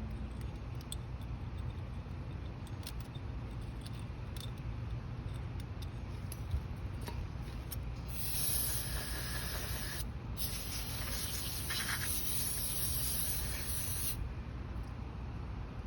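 A pressurised spray hissing into carburetor parts to flush out dirt: one burst of about two seconds and, after a short break, a longer one of about four seconds. Before the spraying, faint small clicks of parts being handled.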